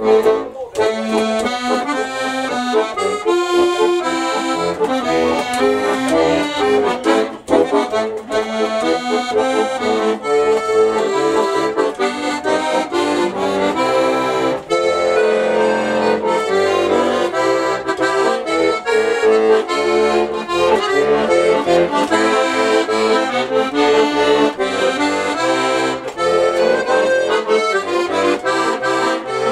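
Button accordion played solo: a melody over chords, with no singing.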